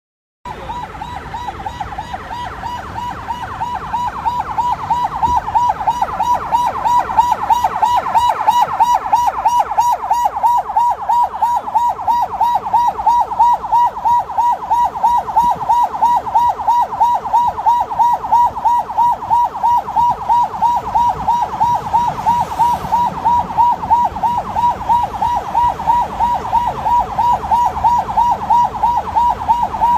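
Ambulance siren sounding a rapid warble, sweeping about three times a second, over low road noise. It grows louder over the first several seconds, then holds steady.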